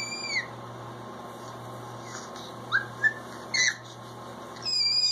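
Baby squealing and cooing in high, gliding squeaks: a long squeal trailing off at the start, a few short squeaks in the middle, and a longer squeal near the end.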